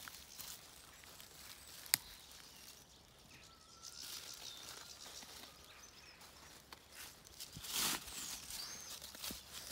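Rustling in dry leaf litter, loudest near the end, with one sharp click about two seconds in. Faint woodland birdsong is heard as a few thin chirps and whistles.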